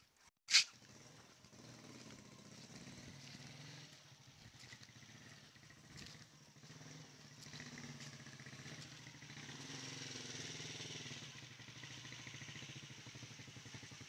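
Small motorcycle engine running steadily, growing louder from about eight to eleven seconds in. A single sharp click just under a second in.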